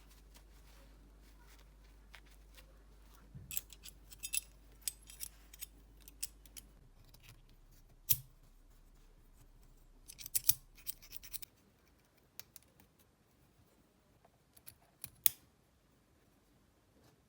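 Small parts and hand tools being worked at a bench: bursts of scratching and rasping with sharp clicks, in a cluster a few seconds in, a single loud click near the middle, another cluster soon after, and a couple of sharp clicks near the end. A faint low hum runs underneath and stops about two-thirds of the way through.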